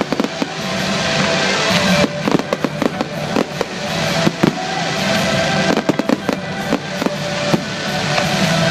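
Fireworks going off in rapid succession, with many sharp bangs and swelling crackle, over loud music playing throughout.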